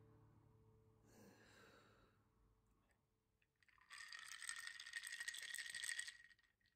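Ice cubes rattling and clinking against the sides of a glass of iced drink as it is swirled. A dense clatter lasting about two and a half seconds, starting about four seconds in.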